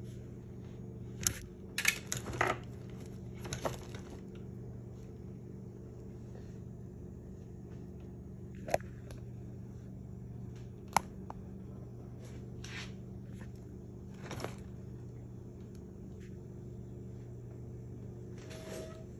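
Scattered light clicks and taps of handling, several close together at the start and then single sharp ones spread apart, over a steady low hum.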